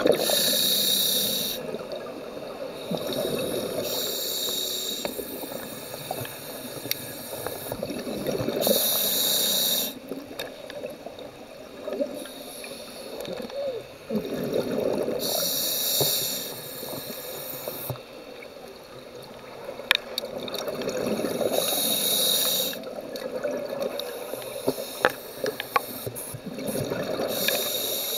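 Scuba diver breathing through a regulator underwater. A hissing inhalation comes every six to seven seconds, five times in all, and a bubbling exhalation follows each one.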